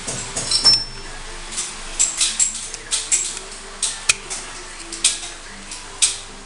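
Small metal clicks and scrapes as the steel parts of a Grand Power X-Calibur pistol frame are handled and worked, with one sharp click about four seconds in.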